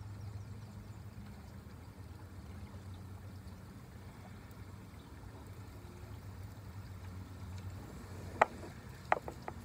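Spinning reel and rod handled in a kayak: a steady low water rumble, then a few sharp clicks near the end, the first the loudest.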